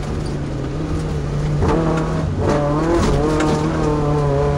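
Class 2 off-road race truck's engine running hard and steady; its pitch dips and climbs again about two seconds in.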